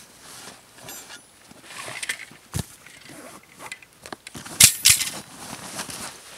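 Canvas rucksack being packed by hand: fabric rustling, straps pulled through and small clinks of buckles and fittings, with two sharp louder rustles about two-thirds of the way through.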